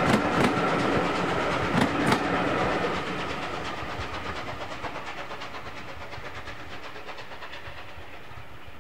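Passenger coaches of a steam-hauled train rolling past, their wheels clicking sharply over rail joints, with a thin high whine under the wheel noise in the first couple of seconds. The rumble then fades steadily as the train draws away down the curved line.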